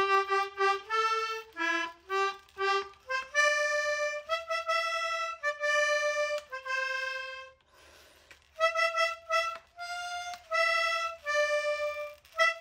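Outro background music: a simple single-line melody of held notes, with a short break about eight seconds in.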